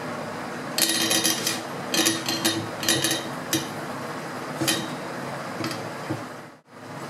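Metal clinking and rattling as the air rifle's action is handled in a steel spring-compressor jig: several short clusters of clicks and knocks, then a few single clinks. The sound cuts out briefly near the end.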